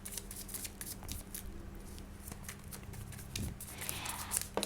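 Tarot cards being shuffled and handled: a quick, irregular run of light card clicks and flicks, with a soft hiss of cards sliding near the end, over a faint steady hum.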